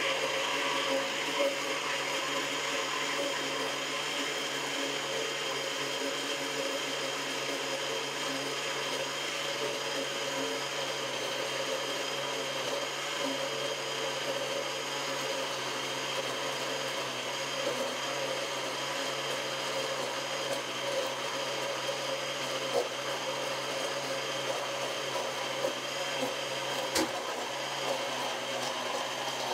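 Countertop blender running steadily, blending a liquid milk mixture of condensed milk, evaporated milk and cream, with an even motor whine. One sharp click sounds near the end.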